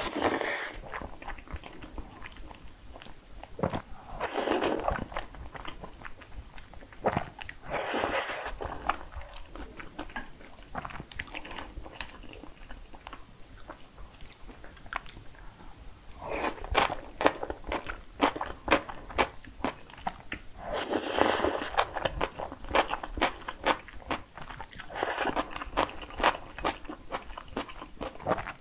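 Close-miked eating of jajangmyeon (black-bean-sauce noodles): about five long, loud slurps of noodles, with wet chewing between them. In the middle comes a few seconds of rapid crunching as she bites into pickled yellow radish.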